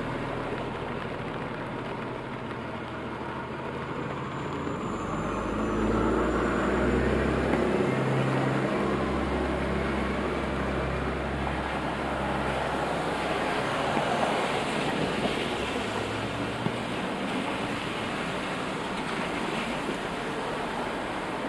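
Traffic on a rain-wet city street: a heavy vehicle passes with a low engine rumble that swells about five seconds in and fades after about twelve, over a steady hiss of rain and tyres on wet road.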